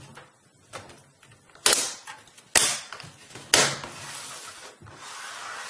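Plastic laptop keyboard trim panel being pressed down, its clips snapping into place: three sharp snaps about a second apart, with a few lighter clicks before them. A soft rubbing follows.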